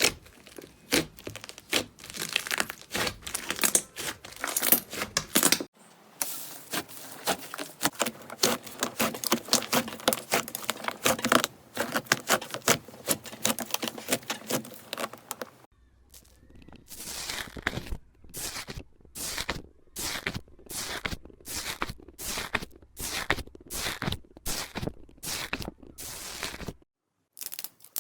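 Slime being squeezed and pressed by hand, giving dense crackling, crinkly popping sounds. The sound changes abruptly about six and sixteen seconds in as the clips change. The last part is a steady rhythm of separate squishes, about one and a half a second.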